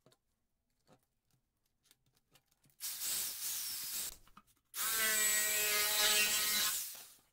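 Jigsaw running in two short bursts: a rough, noisy one about three seconds in, then a longer one with a steady motor whine as the blade saws through a sheet of soft foam.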